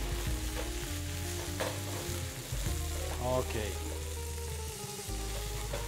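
Chicken pieces sizzling as they fry in oil in a preheated frying pan, stirred with a wooden spatula.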